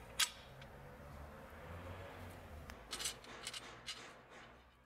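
Brass sword fittings knocking and scraping against the steel tang of a dao blade as the guard is slid on by hand: one sharp click just after the start, then a few lighter clicks about three to four seconds in.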